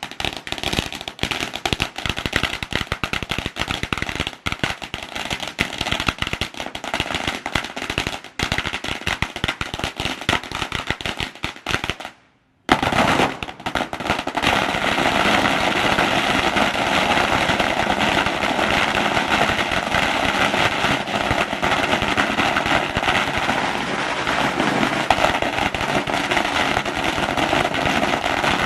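A long string of firecrackers going off in rapid, machine-gun-like succession. After a brief break about twelve seconds in, the popping resumes as a denser, almost unbroken crackle.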